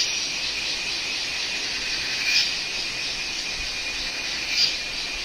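Steady, high-pitched chorus of insects, likely crickets, with a thin continuous trill and a hiss that swells briefly twice.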